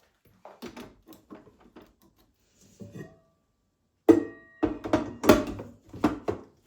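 A series of knocks and clinks as household objects are handled and set down, light at first and louder from about four seconds in, where a few strikes give a short ring.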